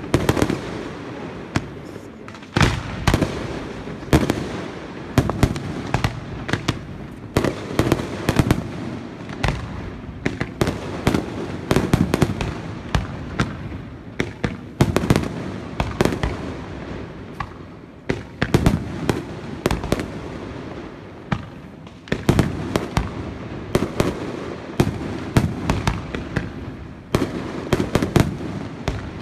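Aerial fireworks display: a dense, irregular run of sharp bangs from bursting shells, one after another with hardly a pause.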